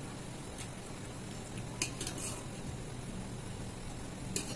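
Fingers gathering and pressing rice on a metal plate, with a few sharp clicks against the plate, one about two seconds in and another near the end, over a steady low hum.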